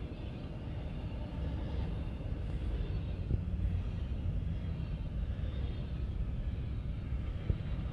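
Norfolk Southern double-stack intermodal train's container cars rolling past close by: a steady low rumble of wheels on rail, with a sharp knock a little under halfway in and another near the end.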